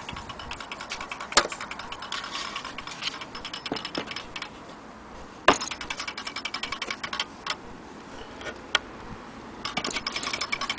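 Antique mantel clock's movement clicking rapidly in stretches that stop and start, with a few sharper, louder knocks.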